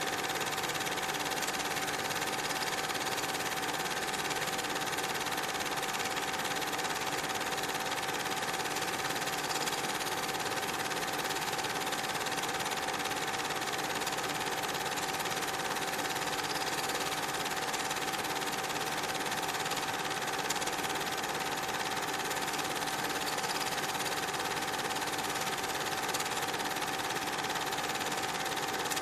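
Steady whirr of a cine film projector mechanism with one constant whine over it, running unchanged.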